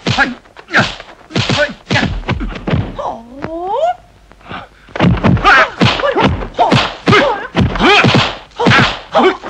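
Rapid run of dubbed kung fu punch and block sound effects, sharp thwacks about every half second, mixed with the fighters' grunts and shouts. There is a short lull about four seconds in.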